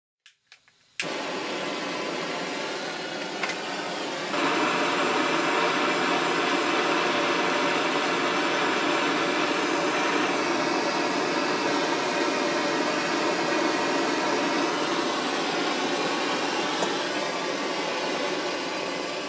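Handheld gas blowtorch burning with a steady rushing hiss as it heats a steel part for soft soldering. It lights suddenly about a second in and gets louder at about four seconds.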